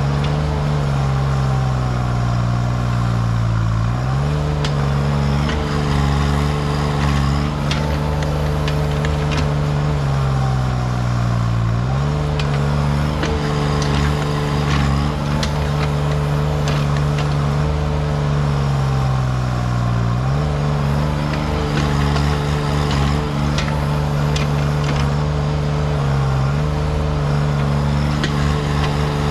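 Diesel mini excavator engine running at high throttle while working. Its note sags under hydraulic load about every eight seconds, then recovers, with scattered knocks and clatter over it.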